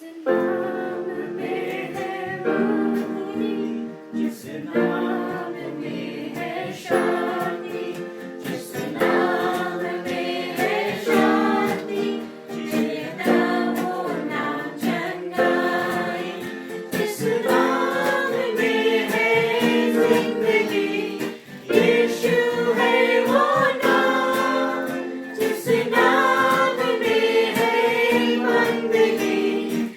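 A worship band's song: a group of voices singing together over a strummed string instrument.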